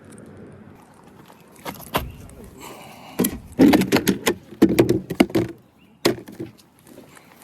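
Fishing gear being packed up: a run of knocks and rattles, loudest in the middle, stopping about six seconds in.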